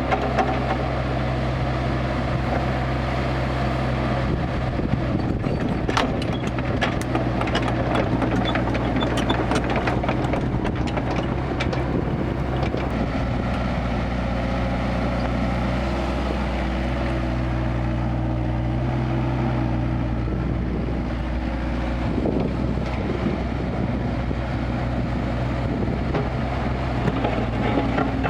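Kubota KX161-3 mini excavator's diesel engine running steadily while working, its note shifting a few times with the load. Scattered knocks and clatters come from about four to ten seconds in.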